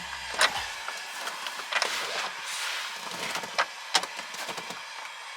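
Scattered knocks and clicks as a Mazda Miata soft top and its frame are pushed and forced to latch into place.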